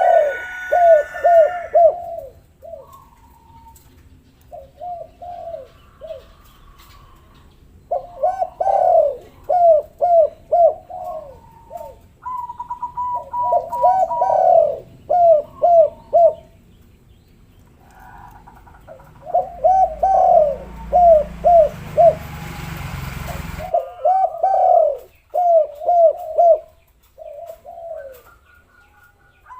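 Spotted dove cooing repeatedly, each phrase a quick run of short falling coos, with phrases coming every few seconds. Small birds chirp faintly, and about twenty seconds in there are a few seconds of loud rushing noise with a low rumble.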